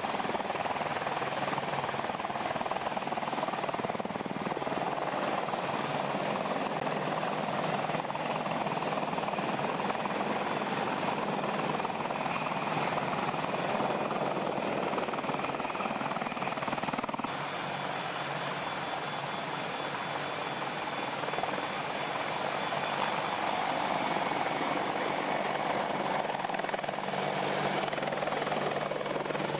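AH-64 Apache helicopters running close by, a steady mix of turbine and rotor noise from machines turning on the ground and one hovering overhead, dipping slightly about halfway through.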